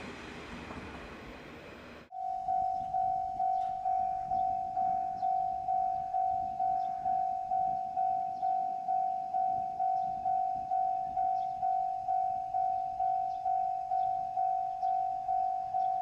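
Diesel railcar running past for about two seconds, then a sudden cut to a railway level-crossing warning bell. The bell rings a single electronic tone, about two strikes a second.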